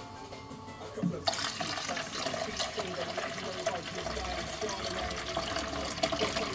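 Monster energy drink being poured into a lawn mower's fuel tank: a steady splashing pour that starts suddenly about a second in and keeps going, with a filling tone under it.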